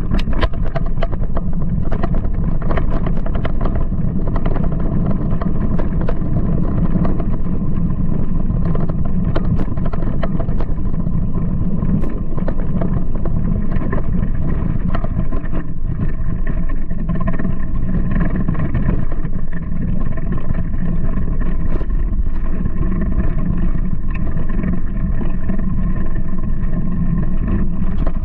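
A mountain bike rolling along a dirt trail: a steady low rumble of wind buffeting the microphone and tyres on the ground, with frequent small clicks and rattles from the bike over rough terrain.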